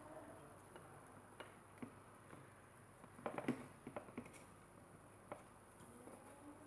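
Scattered small clicks and taps from handling parts during hand assembly, with a quick run of several clicks about three seconds in, over faint room tone.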